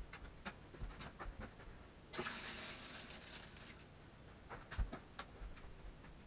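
Water being poured into a small aquarium: a short rush of pouring about two seconds in, among light clicks and knocks of a container being handled against the plastic tank.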